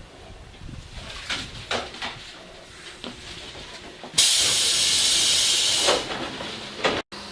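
Tobu 8000 series electric train's compressed-air system letting out a loud hiss for about two seconds, starting and stopping abruptly, after a few light knocks.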